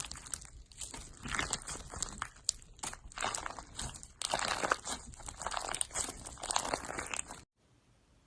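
Slime being squeezed and worked by hand, making a dense run of crunchy crackles and pops. It cuts off suddenly near the end.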